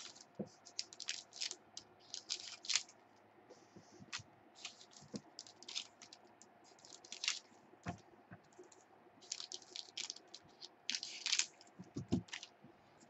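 Scissors snipping open foil-wrapped football card packs, with the wrappers crinkling and cards being handled and set down on the table: an irregular string of crisp clicks and short rustles.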